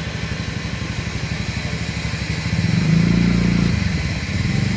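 A motor vehicle's engine running close by with a steady, rapid low pulse, getting louder about halfway through.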